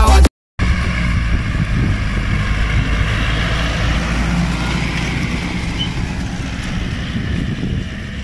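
Farm tractor's diesel engine running steadily as it pulls a trailer loaded with chopped maize across a field, slowly getting fainter as it moves away.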